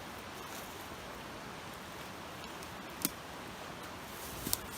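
Steady rushing of a nearby creek, with a couple of light clicks about three seconds in and again near the end.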